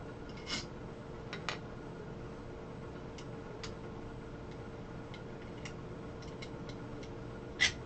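Scattered small metal clicks from an Allen key turning bolts out of a 3D printer's extruder mount, with the loudest click near the end, over a faint steady hum.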